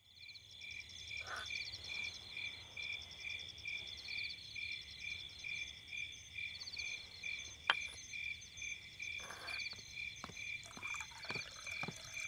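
Night-time frog chorus: a steady pulsing call about three times a second, with a higher trill over it. One sharp click comes about three quarters of the way in, and a few faint knocks follow near the end.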